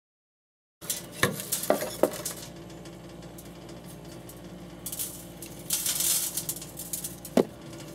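A rusted steel propane burner tube from an RV water heater being handled, with sharp metal clicks and clinks and a stretch of crackly scraping near the middle as its corroded parts rub together. The sound opens with a moment of dead silence.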